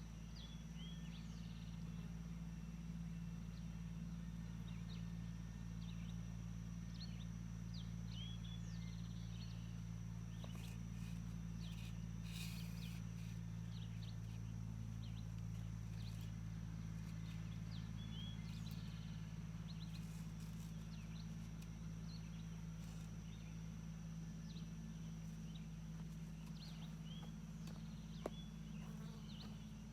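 A steady low engine hum runs throughout, with many short bird chirps scattered over it.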